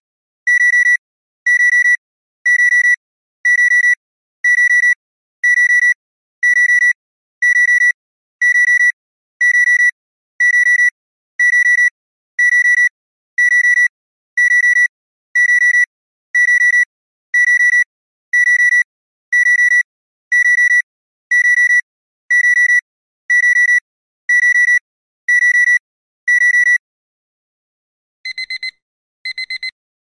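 Alarm clock beeping: a loud, high steady tone, about one beep a second. Near the end it gives way to a quieter alarm with faster beeps in short groups.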